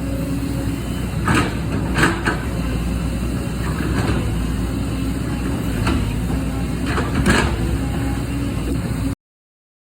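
JCB excavator's diesel engine running steadily under load, with several sharp knocks of bucket and stone, the loudest about a second and a half and two seconds in and again about seven seconds in. The sound stops abruptly near the end.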